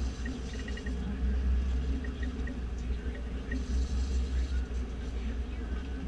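Charter boat's engine as a steady low rumble, with scattered faint quick ticks.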